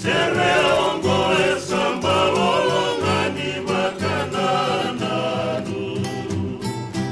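Fijian men's vocal group singing in harmony, with strummed acoustic guitar and ukulele accompaniment.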